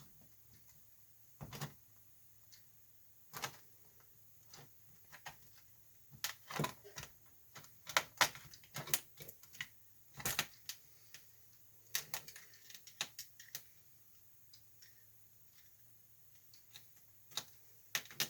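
Scattered metal clicks and clanks of hand tools, vice grips among them, working at a jammed part in a rear axle carrier. The clicks come in irregular clusters, thickest in the middle of the stretch and again a little later, with a few isolated knocks near the start and end.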